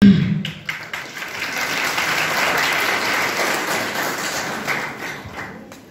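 An audience clapping in applause: a few scattered claps at first, then steady clapping that thins out and dies away near the end.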